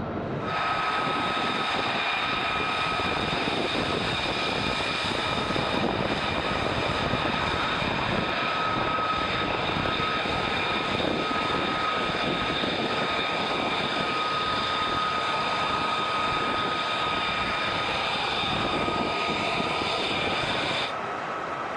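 F-35's single Pratt & Whitney F135 turbofan at taxi power: a steady high whine in several pitches over a broad rushing noise. It starts sharply just after the beginning and cuts off sharply near the end.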